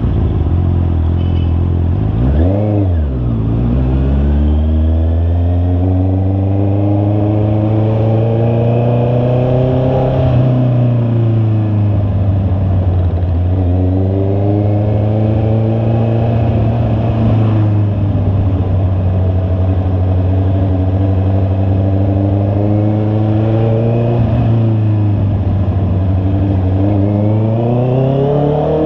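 Honda CB650R's inline-four engine under way, its pitch climbing steadily and dropping back at each gear change, several times over. About two seconds in there is a quick dip and rise in revs.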